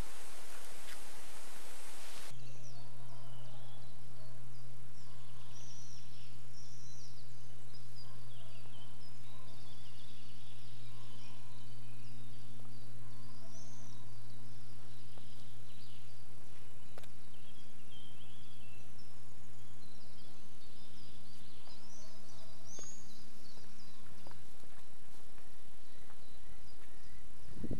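Small birds chirping in many short, quick calls, over a steady low hum that stops about 24 seconds in. For the first two seconds an even hiss of lawn-sprinkler spray is heard instead, cut off abruptly.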